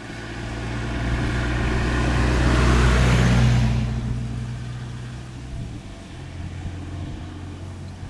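Engine noise swelling to a peak about three seconds in and then fading, a low steady hum with a rushing hiss on top.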